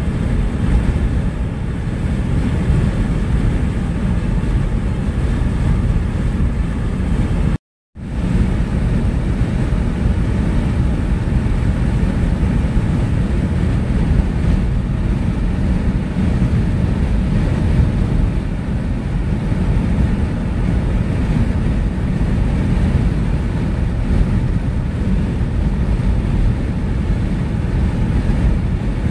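A car driving at highway speed, heard from inside the cabin: a steady low road and wind noise. It cuts out completely for a split second about eight seconds in.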